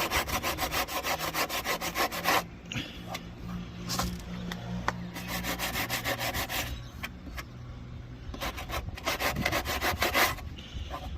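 Sandpaper being rubbed by hand over a car's body panel in brisk back-and-forth strokes. It goes in spells with short pauses, smoothing rough filled areas so they blend into the paintwork.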